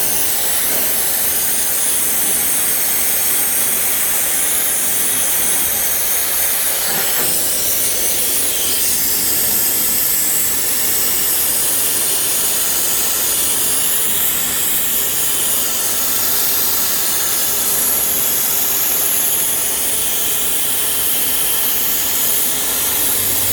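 Steady hiss of a high-pressure cleaning jet blasting through radiator, A/C condenser and intercooler cores; its tone shifts a little about seven seconds in.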